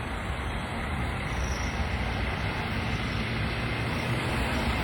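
Busy city street traffic: a steady rush of passing vehicles that grows slightly louder.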